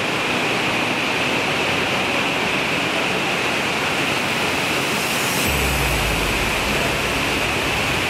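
Steady rush of water from an underground stream and waterfall inside a cave. A deeper rumble joins a little past halfway.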